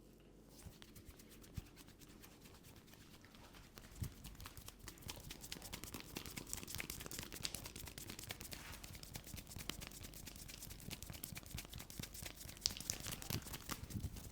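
Hands rubbing and scratching through hair and over the scalp during a head massage, a dense crackling rustle that starts about half a second in and grows louder after about four seconds, with a few sharper ticks.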